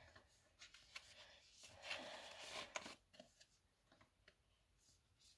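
Faint rustling of plastic photocard sleeves against a clear binder pocket as a card is handled and slid in, with a soft scrape in the middle and a few small ticks.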